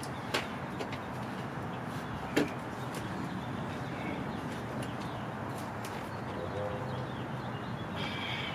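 Two sharp knocks about two seconds apart, the second the louder, as the storm door is handled and set against the door frame, over a steady outdoor background with faint bird chirps.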